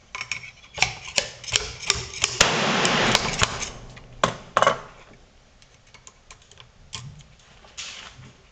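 Handling noise from a miniature naval cannon on a wooden bench: a run of irregular clicks and knocks of metal and wood, with a rubbing sound lasting about a second in the middle. The clatter thins to a few faint clicks in the second half.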